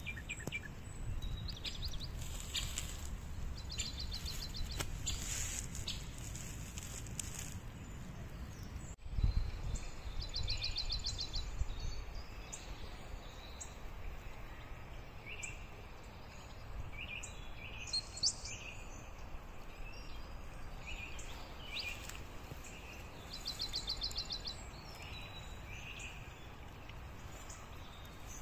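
Songbirds singing and calling in woodland, with repeated short chirps and quick trills, over a steady low rumble. A single low thump comes about nine seconds in.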